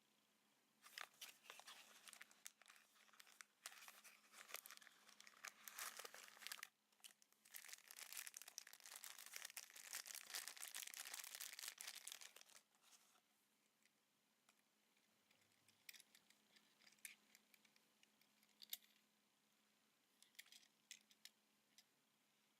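Packaging of a Tomica die-cast minicar being handled and opened, with faint crinkling and tearing for about twelve seconds, then a few light clicks.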